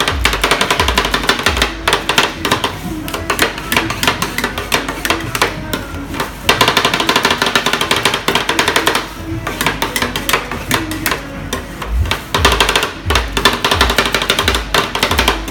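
Rapid clacking of two metal spatulas chopping and scraping ice cream on a frozen steel plate for rolled ice cream, many knocks a second, with music playing.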